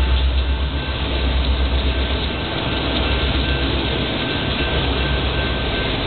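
Union Pacific freight train passing: the diesel rumble of the departing SD70M and SD60M locomotives gives way, about four seconds in, to the steady rolling noise of autorack cars going by on the rails.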